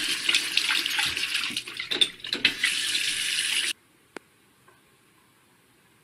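Water running from a bathroom sink faucet into the basin, an even rush that cuts off abruptly a little over three and a half seconds in. Near silence follows, with one faint click.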